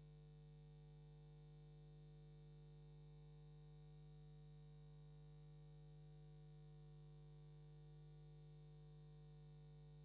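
Near silence: a faint, steady low hum with fainter higher overtones, unchanging.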